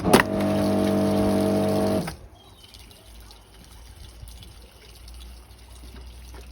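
Kärcher K4 pressure washer switched on with a click: the motor and pump run for about two seconds with a steady hum and a hiss of water, then cut off abruptly, followed by a faint steady rush of water. The water pressure pushes the hose fitting out of its socket, so water leaks out.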